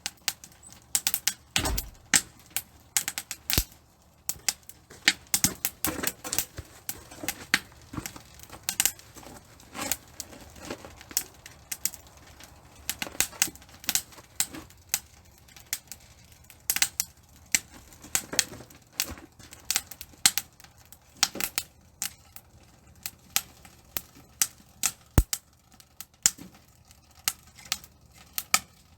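Wood fire crackling in a titanium camp stove: irregular sharp pops and snaps, sometimes several in quick succession, some much louder than the rest.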